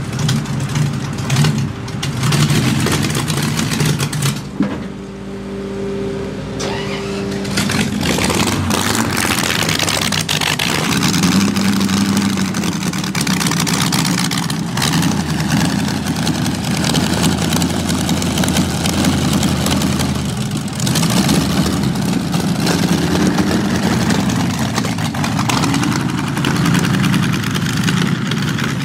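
Streamliner C-16's inline sixteen-cylinder engine, built from two Buick straight-eights joined end to end, running loudly at idle with some revs that shift its pitch up and down.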